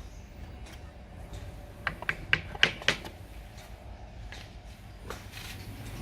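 A quick run of about six sharp knocks and clicks, amid lighter handling clatter, as wooden furniture parts are worked on during dowel fitting and glue-up.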